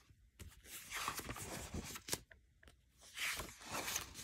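Paper pages of a disc-bound planner being turned: a faint rustling and swishing in two stretches, with a few light clicks.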